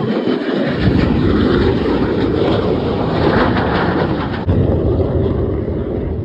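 A MiG-17 jet fighter passing low and fast, its single turbojet giving a loud, steady jet roar.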